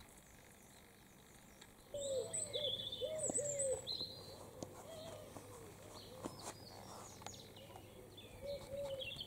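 Birdsong that starts suddenly about two seconds in: a pigeon cooing in repeated low, arched notes, with small birds chirping and trilling higher over it.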